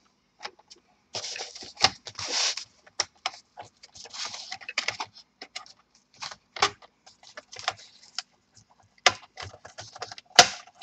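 Plastic bottom cover of a Dell Inspiron 15 5567 laptop being worked off by hand: an irregular run of sharp clicks and snaps as its clips let go, with plastic scraping on plastic about a second in and again around four seconds.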